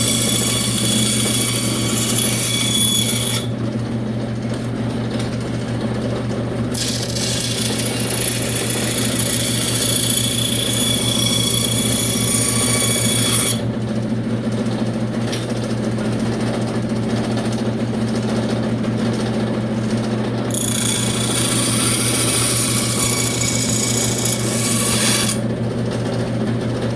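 Power tool running steadily while cutting thin eighth-inch plywood, a loud machine hum with a fast even flutter. The higher cutting hiss drops away twice for several seconds, about 3 s in and again past the middle, then returns.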